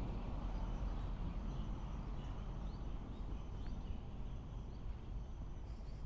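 Steady low outdoor rumble, with faint short bird chirps about once a second through the middle.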